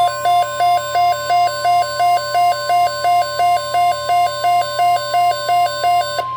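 A Midland WR-120 weather radio sounding its alert: a loud electronic alarm beeping back and forth between two pitches, about three and a half beeps a second. Under it runs the steady 1050 Hz NOAA Weather Radio warning alarm tone, the signal that a weather alert message is about to be read. The beeping stops near the end while the steady tone carries on.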